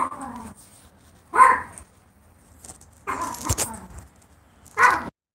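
A dog barking four times, spaced a second or so apart; the sound cuts off just before the end.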